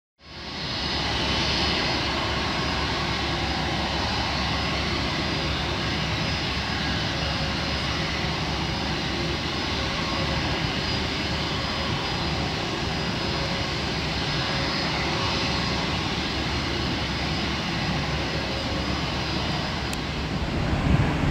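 Jet engines of a Boeing 787-9 airliner running steadily on the ground: an even rushing noise with a faint high whine. It fades in within the first second.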